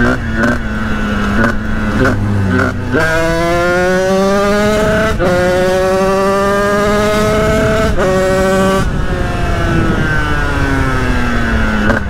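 Sherco 50cc supermoto's two-stroke engine at low revs with a few brief breaks, then pulling from about three seconds in, revs climbing through two gear changes, then easing off with the revs falling over the last few seconds.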